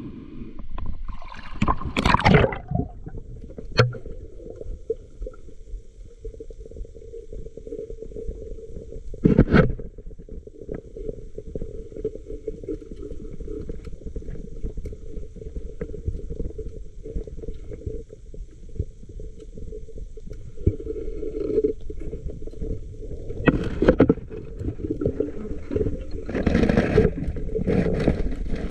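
Muffled underwater noise picked up by a diver's camera, a steady low rush of water broken by a few louder bursts of water and scraping noise: about two seconds in, near ten seconds, and twice near the end.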